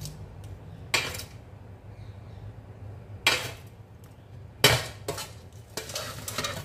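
Metal knife scraping and knocking across a plastic cutting board as a filling is pushed around on a flatbread. Short sharp scrapes come about a second in, around three seconds and around four and a half seconds, then a quick run of them near the end.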